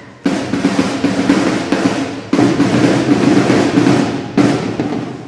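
Drum music for a drill routine: loud snare rolls with bass-drum hits, coming in with sharp accented entries about a quarter second in, just after two seconds and again after four seconds, and fading out near the end.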